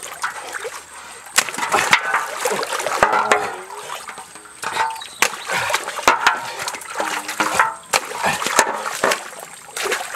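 Splashing stream water as dragon fruit are rinsed by hand, with sharp knocks and clicks from a machete cutting at the cactus and things set down in a large metal basin.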